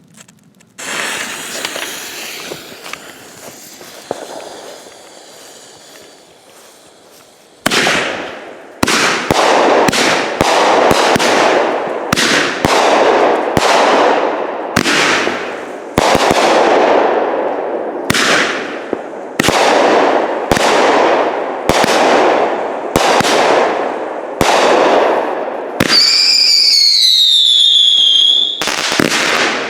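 A Phantom Minotaur 200-gram repeater cake: a hiss for the first several seconds, then shot after shot about a second apart, each a sharp report that trails off. Near the end comes a whistle that falls in pitch for a couple of seconds, followed by another shot.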